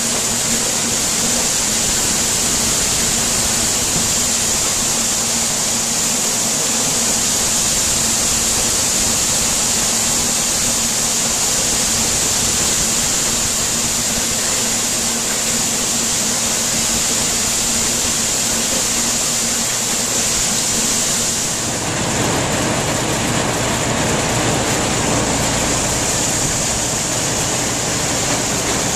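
Corn sheller running steadily as ear corn is shelled, a continuous high hiss over a steady low hum. About 22 seconds in, this gives way suddenly to a different, lower and rougher machine noise.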